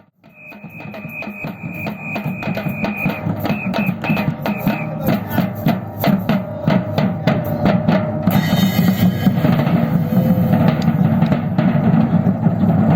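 Batucada percussion ensemble starting up again after a brief break and growing steadily louder, the low bass drums carrying the beat. A high whistle sounds one long blast and then several short ones over the drums, and a brighter hissing percussion layer joins about eight seconds in.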